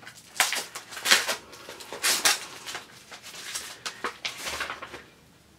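Paper and packaging rustling and crinkling in a string of short bursts as it is handled.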